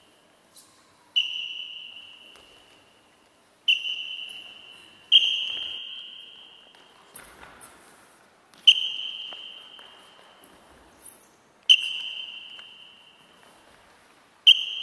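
A high ringing tone that starts suddenly and fades over a second or two, struck again about six times at uneven intervals.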